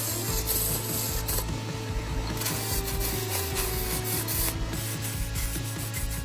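A turning tool cutting into a big spinning disc of glued-up wood on a large wood lathe: a continuous rasping scrape over a steady low hum.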